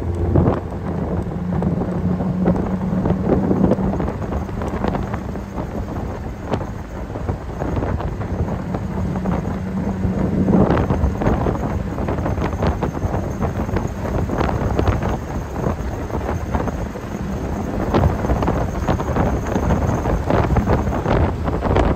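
Wind buffeting the microphone of an open MG TD roadster on the move, with crackling gusts over the low, steady note of its four-cylinder engine.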